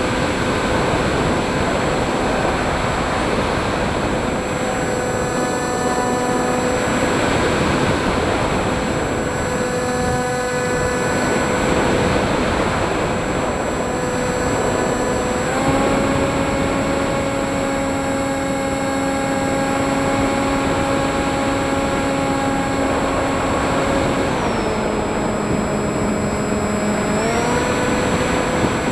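FPV drone's electric motors and propellers buzzing in flight, with a rush of air noise. The pitch holds, steps up about halfway through as the throttle rises, then dips and glides back up near the end.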